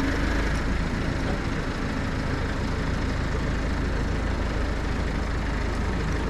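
Engine of a truck-mounted aerial work platform running steadily, with a steady low hum; a higher steady tone fades out about half a second in.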